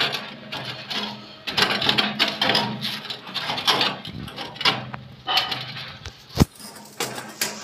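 Knocks and scrapes of a tall steel drum-type water geyser, built to fire on gas or wood, being shifted and twisted into place against a brick wall, with one sharp knock about six seconds in.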